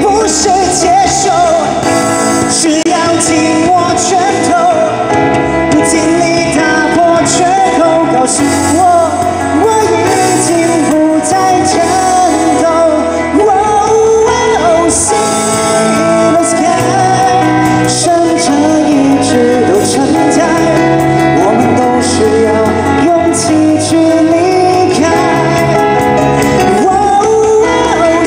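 Live pop band playing a song: a male lead singer with female backing voices over keyboards and drums with cymbals.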